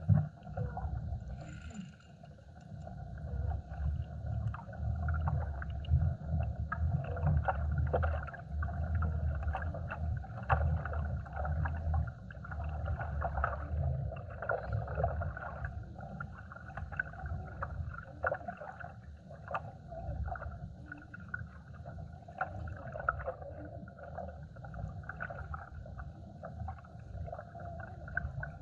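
Water lapping and slapping against a plastic kayak hull, a fluctuating low rumble that goes on throughout, with scattered small clicks and knocks.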